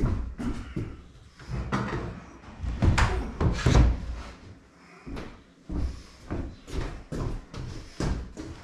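Solid pine worktop being shoved and knocked into position on wooden base cabinets: a run of wooden knocks and thuds, loudest about three to four seconds in.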